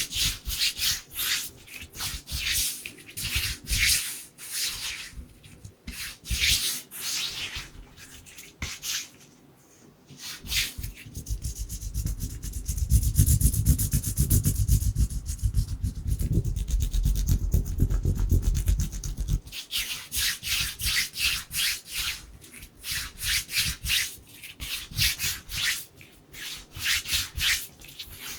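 Dry hands rubbing together close to the microphone in quick, uneven strokes, a papery swishing. For several seconds in the middle the rubbing becomes continuous and fuller, with a low rumble, before returning to quick separate strokes.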